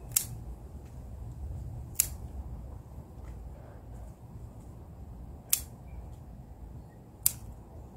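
Scissors snipping through Swiss chard stems as leaves are harvested: four short, sharp snips, one every couple of seconds.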